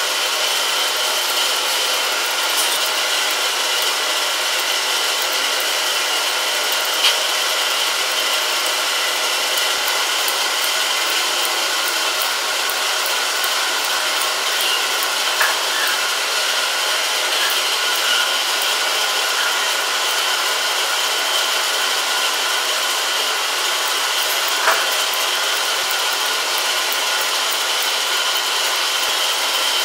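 Grooming shears snipping through a poodle's curly coat, faint crisp snips and a few small clicks over a steady hiss with a faint whine.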